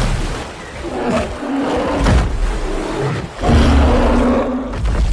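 A bear roaring several times, the longest and loudest roar near the end, amid splashing water as it fights in a river.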